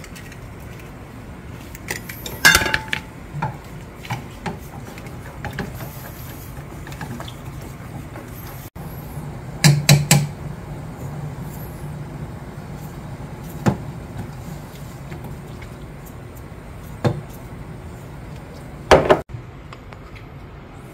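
Kitchen utensils such as chopsticks knocking and clinking against a saucepan of egg soup on a gas burner, a few sharp clatters spread out, the loudest near the middle and near the end, over a steady low background rumble.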